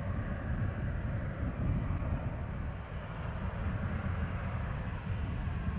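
Boeing 737-800's CFM56 jet engines heard from a distance on the runway: a steady low rumble with a hiss over it.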